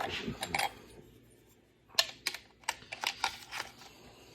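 Small hard parts being handled: a scatter of light, irregular clicks and taps, starting about two seconds in after a quieter stretch.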